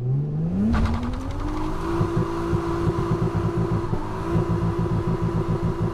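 Nissan Skyline R34 GT-T's turbocharged straight-six revving hard, heard from inside the cabin. The pitch climbs over the first second or two, then holds high and steady with a rapid pulsing as the rear tyres spin in a smoky burnout.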